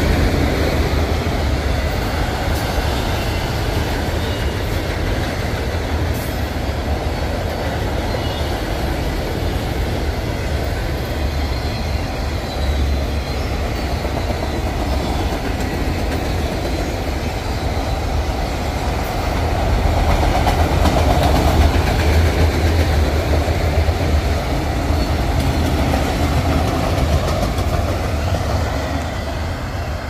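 Freight train of autorack cars rolling past, a steady rumble and clatter of steel wheels on the rails. It grows a little quieter near the end as the cars move away.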